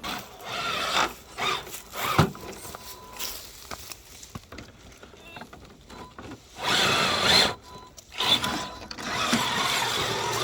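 Small electric RC crawler trucks working over rough trail ground, with motor and tyre noise coming in uneven stretches. The loudest stretches come near the end.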